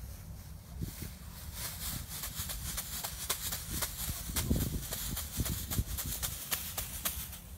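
Plastic bag crinkling and crackling in quick, irregular rustles as it is rubbed and shaken against a tied horse to desensitize it. The crackling is densest through the second half, with a few dull thumps near the middle.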